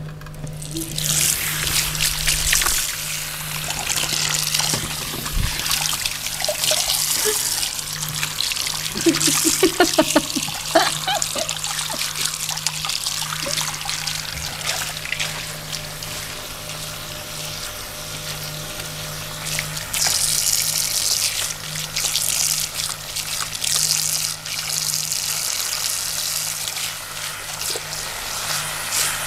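Water running from a tap in a steady, uneven stream, with a steady low hum beneath it.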